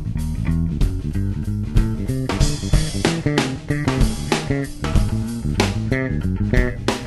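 Background music: rock or blues with bass guitar, guitar and drums, a steady beat.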